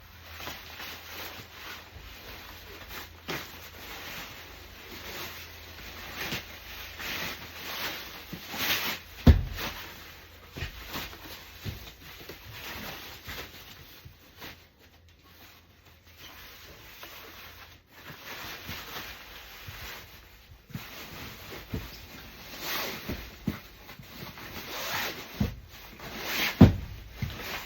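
Fabric and plastic rustling and rubbing as a folded Graco Pack 'n Play playard is handled and packed away, with a couple of sharp knocks from its frame.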